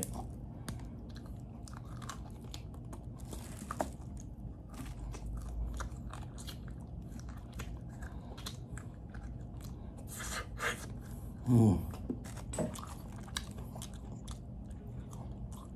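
A person chewing and biting food close to the microphone, with wet, crunchy mouth clicks throughout. A brief voiced sound from the eater comes about three-quarters of the way through.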